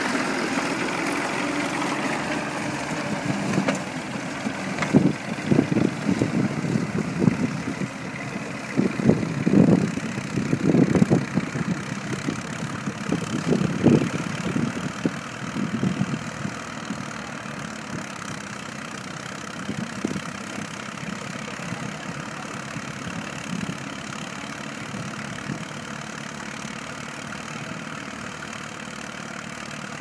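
Vintage tractor engine running steadily, with irregular louder pulses through the first half, then growing fainter.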